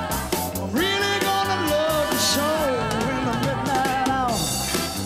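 Upbeat soul music with drum kit, bass and singing. About a second in, a long note is held for some three seconds.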